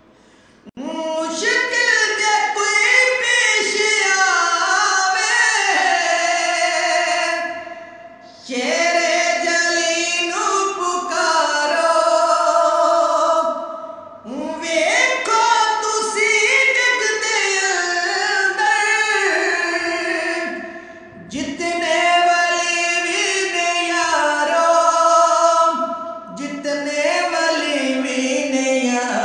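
A man sings a naat unaccompanied, in long phrases of held, bending notes. He breaks briefly between phrases about four times.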